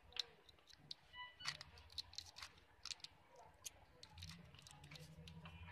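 Faint, scattered clicks and crinkles of a clear plastic carrier tape of spare charging-port connectors being handled, as a connector is worked out of its pocket.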